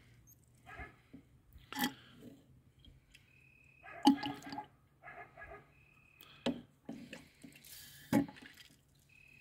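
An antifreeze tester's squeeze bulb drawing coolant up its tube from the expansion tank and squirting it back, about four times at roughly two-second intervals, with liquid gurgling and short squeaks between. This is the coolant being sampled to check its freeze point after an antifreeze change.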